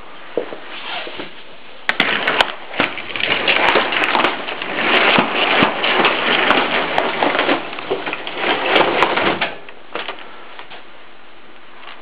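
Camera handling noise: rubbing and crackling on the microphone with scattered sharp clicks, from about two seconds in until near the end.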